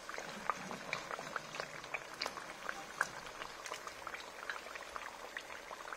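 Hot oil sizzling in a wok around batter-coated potato slices deep-frying, with a steady scatter of small crackling pops. The slices are golden brown, near the end of frying.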